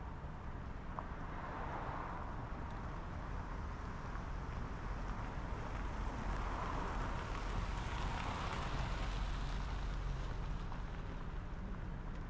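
Steady road and wind noise of a car driving, with a low rumble underneath, swelling louder about halfway through and easing off near the end.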